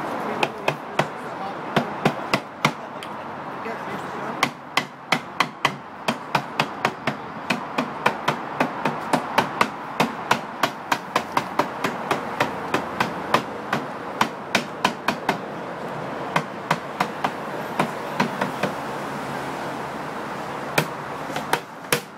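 A cooper's hammer striking a hoop driver, driving the hoops down tight on an oak whisky barrel. Sharp blows come about two a second in long runs, with brief pauses.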